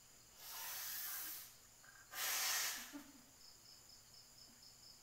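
A person taking a deep breath in and letting it out: two breathy rushes of about a second each, the second louder, as the patient breathes deeply for a stethoscope check of the lungs.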